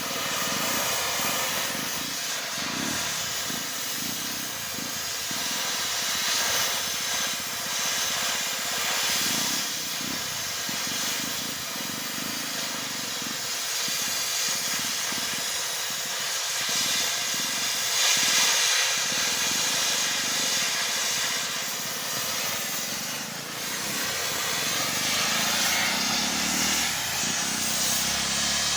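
Continuous hissing noise that rises and falls in strength throughout, with no clear tone or rhythm.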